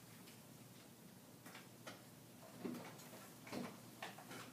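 Near silence in a quiet room, broken by a few faint, scattered clicks and taps.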